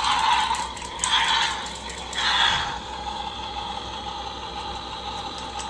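Toy car running: a steady mechanical whir of its small motor and gears, with short rattling surges at the start, about a second in and about two seconds in.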